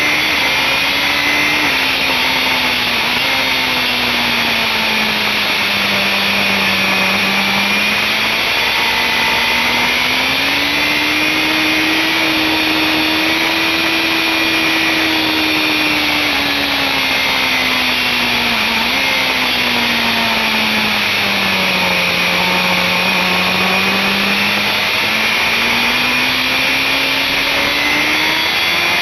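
BMW S1000RR's inline-four engine running at high revs under a heavy rush of wind, recorded on board. The engine note sinks and climbs back twice over the lap section as the bike slows for corners and accelerates out of them.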